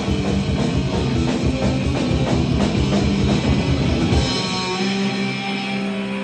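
Live rock band playing loud and fast with drum kit and guitar. About four seconds in the drums stop and held guitar notes are left ringing.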